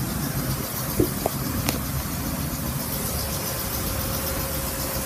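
Steady low rumble of street traffic, with a light knock about a second in and a sharp click shortly after. A faint steady whine joins about three seconds in.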